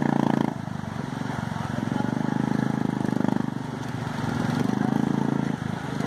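Motorcycle engine revving hard in about three surges as the bike is forced through a flowing stream crossing, over the steady rush of the water.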